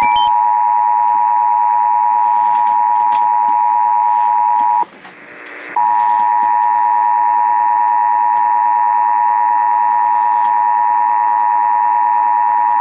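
Emergency Alert System attention signal: the two-tone alert tone (853 and 960 Hz) held steady. It breaks off for about a second some five seconds in, then resumes. It announces an EAS test broadcast.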